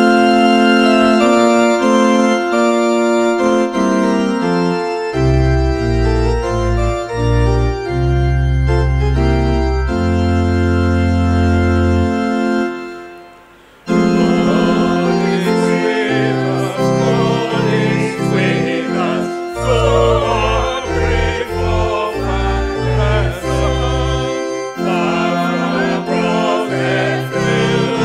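An organ plays the introduction to a hymn in long held chords and stops briefly about halfway. It then comes back in with voices singing the hymn to its accompaniment.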